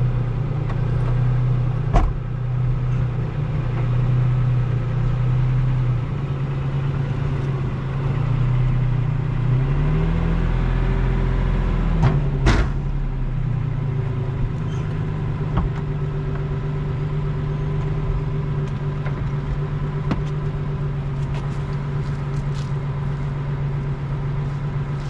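Vehicle engine running steadily, its pitch wavering and rising briefly about ten seconds in. A few sharp knocks sound near the start and again around the middle.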